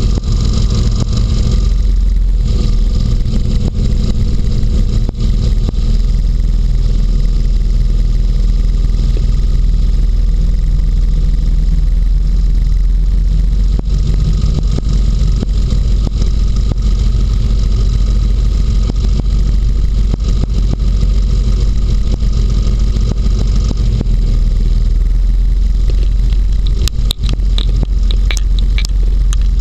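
Inflatable hovercraft running at speed over snow and ice, its engine and fan making a loud, steady low drone. Near the end there is a short run of sharp clicks and scrapes.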